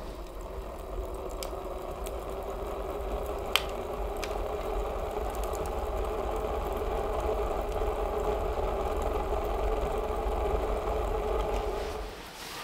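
Steel wood stove burning hard with its door shut, the fire drawing air through the open draft below in a steady rumble that builds slightly. There is a single sharp crackle about three and a half seconds in, and the sound cuts off suddenly near the end.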